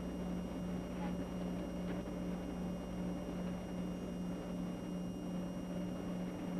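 Steady room hum: a constant low drone with an even hiss over it.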